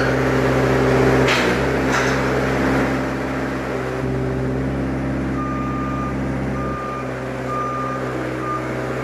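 Delivery truck's engine running steadily, with two short sharp noises a little over a second in. From about halfway its reversing alarm starts beeping, roughly once a second, as the truck backs up.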